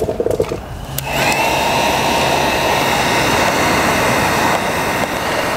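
Handheld electric heat gun switched on about a second in, its fan blowing steadily with a faint high whistle. It is heating the tint film to seal any lifting edges onto the taillight.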